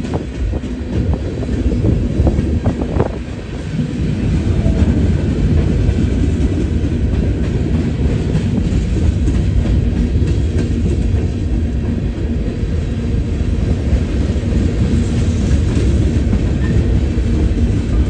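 CSX freight train M634 rolling steadily past, its wheels running over the rail joints with a clickety-clack.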